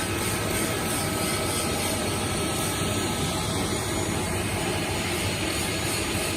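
Steady drone of heavy machinery running, with a low hum and a thin, steady high whine.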